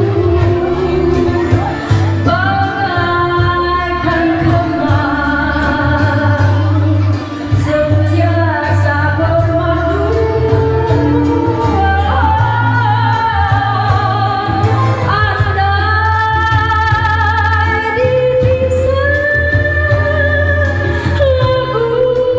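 A woman singing into a microphone over a backing track, amplified through a portable party speaker, with a steady bass line under a wavering sung melody.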